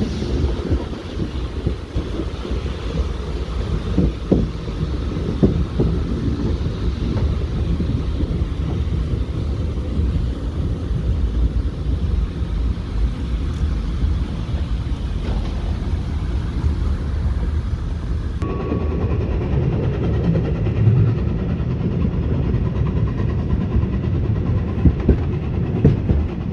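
Fichtelbergbahn narrow-gauge steam train under way, heard from the carriage: a steady low rumble of the wheels on the rails with a few short knocks.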